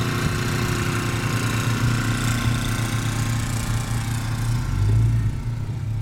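Jeep engine running with a steady low hum, swelling briefly about five seconds in, over a hiss that fades out during the first few seconds.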